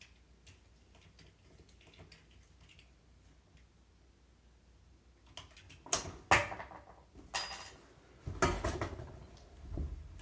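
Small metal parts and tools being handled: faint clicks at first, then several louder knocks and clatters in the second half, one with a short high metallic ring.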